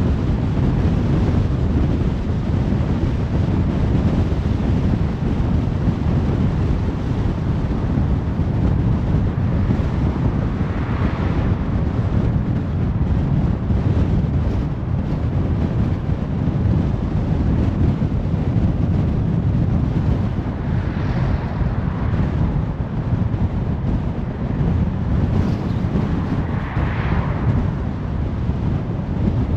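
Steady wind and road noise from a car driving along, a heavy low rumble without pauses. Three brief hissy swells rise and fall, about a third of the way in, about two-thirds in, and near the end.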